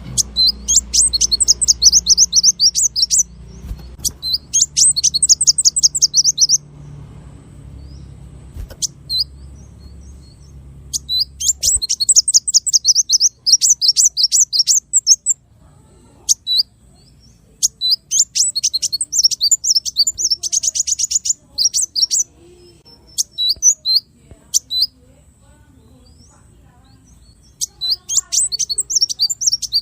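Small songbird singing fast rapid-fire trills of high, sharp notes ('tembakan'), in bursts of a few seconds separated by short pauses, as used for training songbirds such as magpie-robins.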